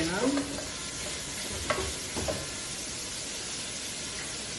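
Sliced onions and green chillies sizzling in hot oil in an aluminium pressure cooker, stirred with a wooden spatula that knocks against the pot twice about two seconds in.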